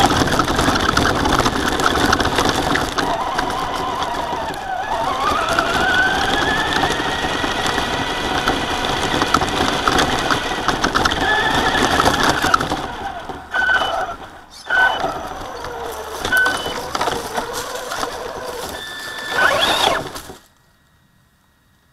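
Traxxas Slash RC truck driving over grass, gravel and leaves, heard from its on-board camera: an electric motor whine rising and falling with speed over the rattle of tyres and chassis. Near the end it stops and starts in short bursts, then cuts off abruptly almost to silence.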